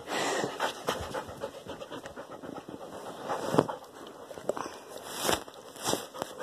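A dog panting close to the phone, with rustling and irregular knocks from the phone being moved around; the loudest knock comes about halfway through.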